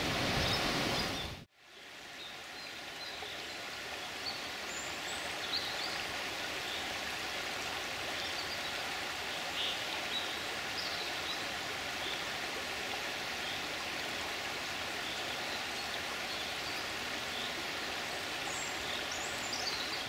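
Steady rush of lake water along an icy, stony shore, with a few brief high chirps of small birds scattered through it. A louder rush in the first second and a half cuts off abruptly.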